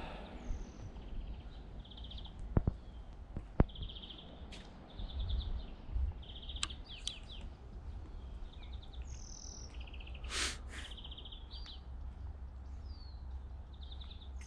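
Songbirds singing: short buzzy trills repeated about once a second, with thin high whistled notes, over a steady low background rumble. Two sharp clicks near the start.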